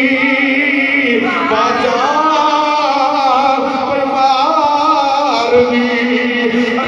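A man singing a devotional verse into a microphone, drawing out long held notes that slide up and down.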